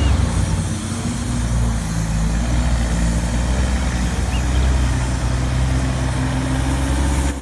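A semi-truck's diesel engine running as the tractor-trailer pulls slowly past: a steady deep rumble with a continuous hiss above it.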